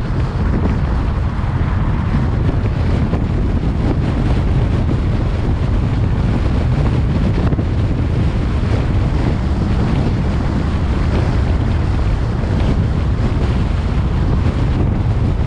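Steady wind noise buffeting the microphone on a moving car, over the rumble of road and tyre noise.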